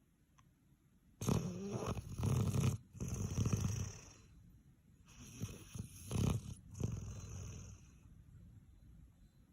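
A sleeping puppy snoring like a buzzsaw: loud, rough snores start about a second in, come in breath after breath with short pauses, and fade near the end.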